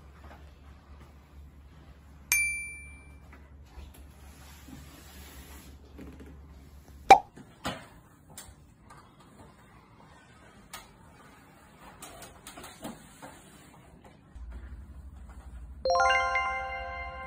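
Edited-in sound effects: a bright ding about two seconds in, a loud pop about seven seconds in, and a ringing musical chime chord near the end. Faint handling and rustling sounds lie between them.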